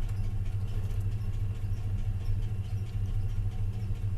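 Car's V8 engine idling steadily with an even low pulse. The scan tool is logging misfires on the passenger-side bank, where the owner says something is misfiring.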